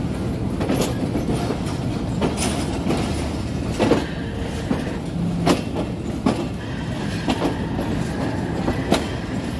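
Passenger train rolling slowly out of the station: a steady rumble with irregular clacks of the wheels over rail joints and points. A faint high whine joins about halfway through.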